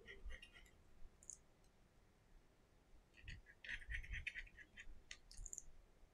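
Faint small clicks and taps of hands handling small repair tools and parts on an opened smartphone, with a quick run of clicks about four seconds in.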